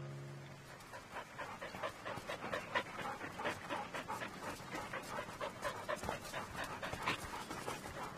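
Several dogs panting with quick, irregular breaths.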